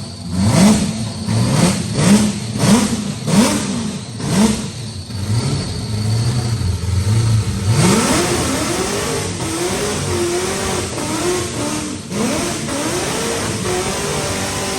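Supercharged alcohol-fuelled engine of a 1,400 hp VX Commodore Clubsport being revved in quick sharp blips, about one every two-thirds of a second. About eight seconds in it jumps to high revs and is held there, its pitch wavering up and down under a dense rushing noise.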